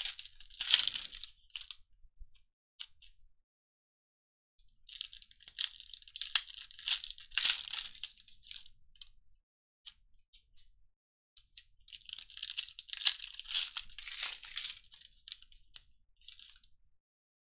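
Foil trading-card pack wrappers being torn open and crinkled by hand. There is a short burst of crackling at the start, then two longer stretches of tearing and crinkling, with small clicks in between.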